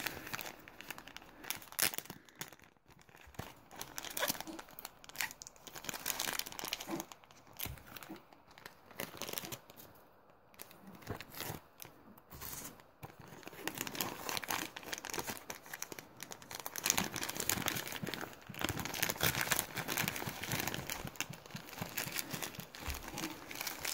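Plastic mailer pouch and packaging crinkling and tearing as it is handled and opened by hand: irregular crackles and rustles, with gaps in the first half and more continuous rustling from about two-thirds of the way in.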